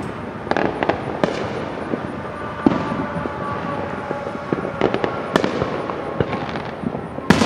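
Consumer fireworks going off at a distance: scattered sharp bangs and pops at irregular intervals, the loudest near the end.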